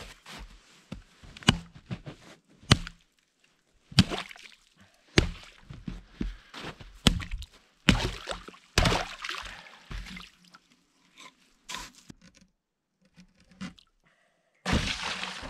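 Hatchet chopping through creek ice: repeated sharp strikes about a second apart, with ice breaking and water splashing after each. Near the end, water sloshes and pours as a pot is dipped in the hole and emptied into a plastic bucket.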